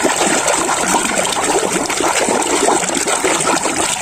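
Water sloshing and splashing as a hand swishes rapidly through a tub of water, rinsing a plastic toy animal. It starts abruptly and keeps up a steady churning splash.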